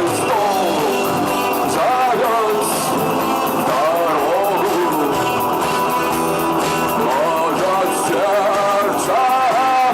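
Rock music with a singing voice over electric guitars.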